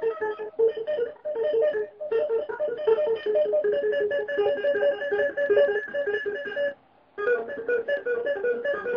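Guitar with a sock laid on its strings, drummed on by hand: fast, rhythmic, damped pitched notes, with a short break about seven seconds in.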